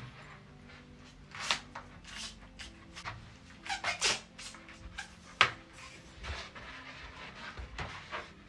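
Large inflated latex balloon being handled: irregular rubbery squeaks, rubs and taps of the stretched latex against hands and skin, with the sharpest one about five and a half seconds in.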